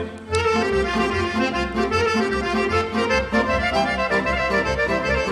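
Instrumental break of a Bulgarian folk song: an accordion plays a quick melody of short notes over a steady pulsing bass beat.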